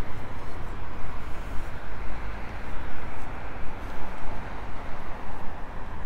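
Wind buffeting the handheld microphone: a steady low rumble with fast, uneven swells and a hiss above it.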